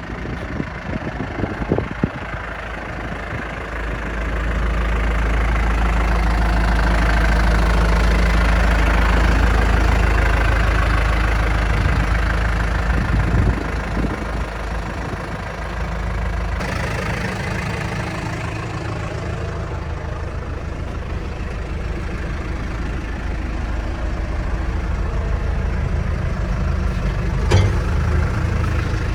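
2007 Case 580 Super M Plus backhoe's 95 hp CNH diesel engine running steadily, growing louder about four seconds in and easing back slowly after that. A single sharp click near the end.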